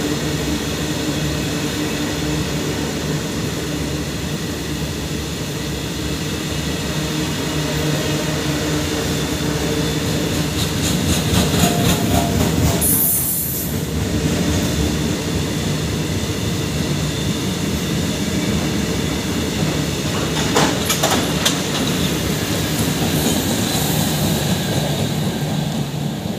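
Fully loaded open freight wagons rolling past on the track: a steady rumble and rattle of wheels over the rails. There is a brief high-pitched screech about thirteen seconds in and a few sharp clacks around twenty-one seconds.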